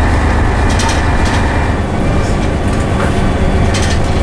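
Scania N113CRB single-deck bus with a Voith automatic gearbox, heard from the saloon while on the move: the rear engine's steady low drone, with short rattles from the body and fittings every second or so.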